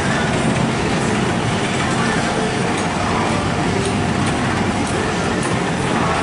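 B&M inverted roller coaster train climbing its lift hill: a steady mechanical rumble with a few faint ticks, over the chatter of people nearby.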